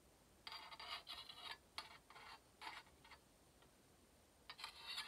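Thread and fingers rubbing on a small antique sewing machine while it is being threaded: several short, soft scratching rubs with quiet between them.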